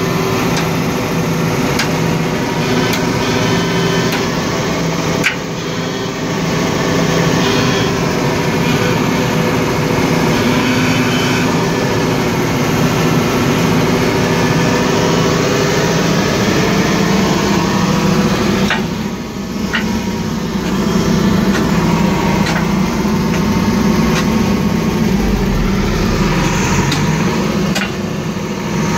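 Sumitomo SH210 excavator's diesel engine running at a steady idle, warming up before work. A few light clicks sound over it.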